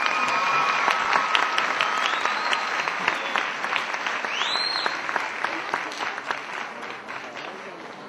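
Audience applauding, with a few high held calls rising over the clapping. The applause eases off slowly toward the end.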